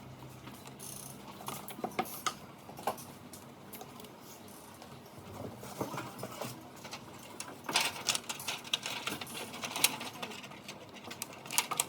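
Scattered clicks, taps and light rattles of a UPS's casing, screws and parts being handled during a repair, with a dense run of rapid clicks a little past the middle.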